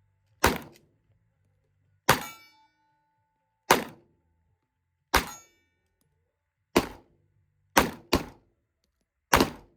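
Eight gunshots fired one at a time, about a second and a half apart, with two in quick succession near the end.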